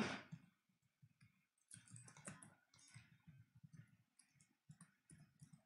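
Faint computer keyboard typing: an irregular run of light key clicks that starts about two seconds in.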